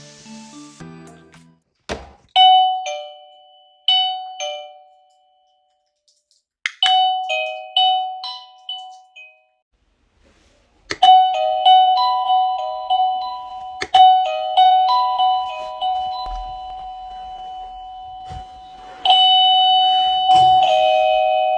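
Wireless doorbell receiver playing a series of different electronic chime tunes, each one starting just after a sharp click. First comes a short tune of a few notes, then a somewhat longer one after a pause, then a long melody of about eight seconds. Another tune begins near the end.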